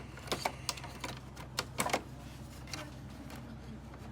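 Irregular light clicks and taps of small console parts being handled and fitted as a PlayStation 5 is reassembled, with the loudest cluster of clicks a little under two seconds in, over a steady low hum.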